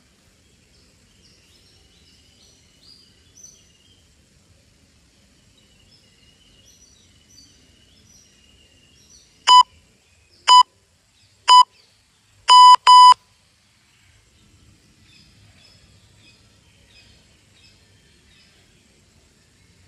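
Electronic interval-timer countdown: three short beeps about a second apart, then a longer doubled beep, marking the start of a one-minute work interval. Birds chirp faintly before and after.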